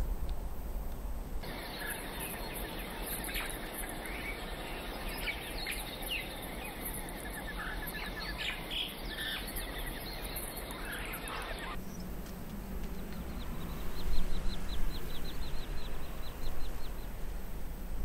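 Birds chirping and calling over a steady outdoor background. About twelve seconds in, the background changes to a different one carrying a fast, evenly spaced trill.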